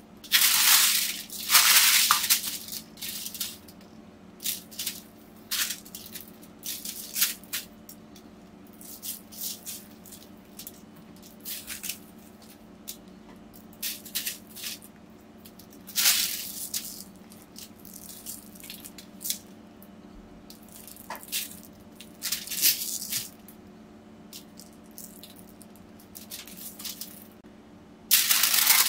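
Hands rubbing dry spice rub into a rack of pork ribs on aluminium foil: irregular scratchy rustles with crinkles of the foil, loudest about a second in and again about midway. A louder stretch of rustling starts right at the end.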